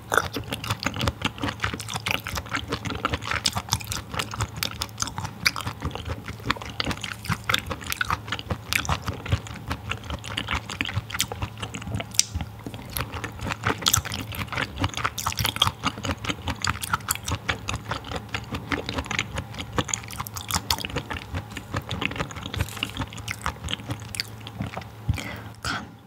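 Close-miked chewing of raw filefish sashimi: many small wet clicks and smacks a second, irregular and with no pauses.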